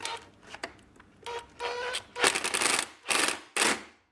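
Cordless drill driving a self-tapping screw into sheet metal in short trigger bursts: a brief motor whine, then several rattling bursts about half a second long, one after another.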